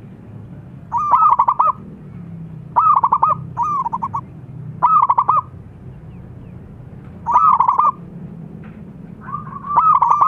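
Zebra dove cooing: about six short phrases of rapid, staccato rolled notes, each under a second long, coming every one to two seconds.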